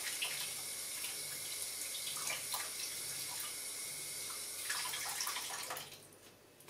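Kitchen tap running steadily, filling a small bowl with water. The flow changes about five seconds in and then shuts off shortly before the end.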